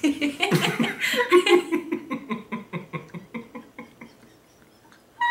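A man and a woman in a fit of uncontrollable laughter: a loud burst that breaks into rapid, regular pulses of laughing and fades away over about four seconds.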